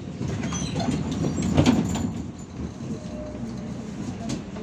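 Cabin noise inside a running MAZ-105 city bus: a steady low rumble, with a louder stretch of clatter and clicks in the first two seconds.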